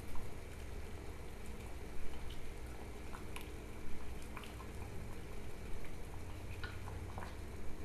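Water boiling in a small stainless saucepan on a gas burner: scattered small pops and ticks of bubbling over a steady low hum.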